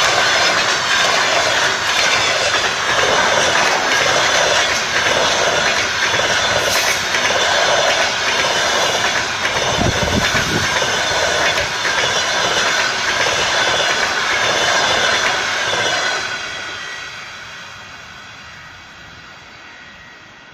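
Passenger coaches rolling past, their wheels clattering in an even rhythm over the rail joints. The noise drops away about sixteen seconds in as the last coach goes by.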